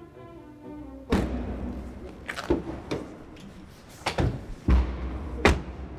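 Music stops about a second in, cut off by a heavy thud. A string of about half a dozen more thuds and slams follows over a low rumble, the loudest near the end.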